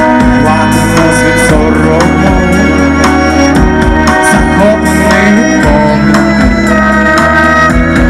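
Live band music: a male singer over acoustic guitar with a steady drum beat.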